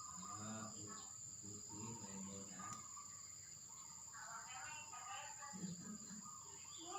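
Steady high-pitched insect drone, typical of crickets, with people talking in low voices over it.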